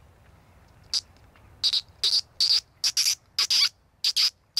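Hunter's squeak call, made by sucking air in through the lips or against a wet finger, used to call rabbits out of their holes. About ten short, high squeaks in quick succession, some in pairs, starting about a second in.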